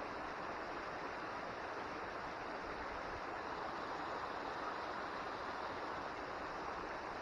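Small running mountain stream, a steady even rush of water.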